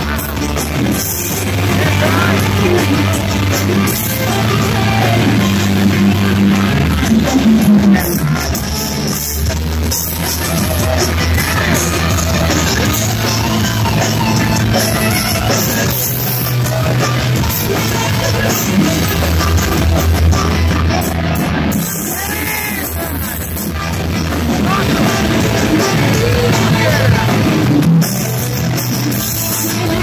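A rock band playing loud and without a break, with an electric guitar close by and shouted vocals.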